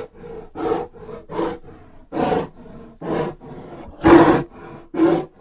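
Creature sound effect for the tapiraphant, an imaginary tapir-elephant beast: a series of short animal roars, about one a second, the loudest just after four seconds in.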